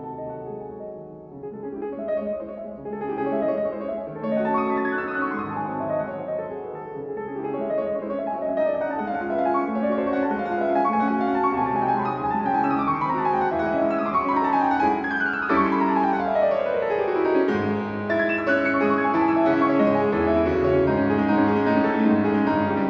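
Background piano music: a steady flow of notes, with a long run falling in pitch a little past the middle.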